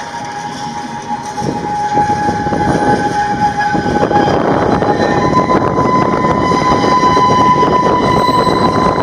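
Freight wagons rolling past at close range, their wheels clattering over the rails, getting louder about two seconds in. A steady high-pitched squeal from the wheels runs throughout and steps slightly higher about five seconds in.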